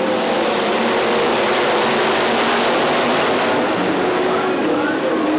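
A pack of IMCA SportMod dirt-track race cars running at speed, their V8 engines blending into a loud, steady din with engine notes rising and falling.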